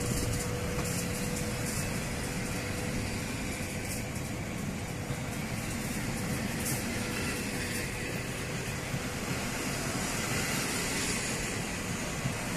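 Passenger coaches of a locomotive-hauled train rolling past along a platform: a steady rumble of steel wheels on rail. A faint high whine joins about halfway through.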